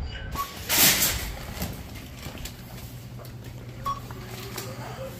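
Retail store interior ambience: a steady low hum with scattered light clicks and two short beeps. A brief loud rush of noise comes about a second in.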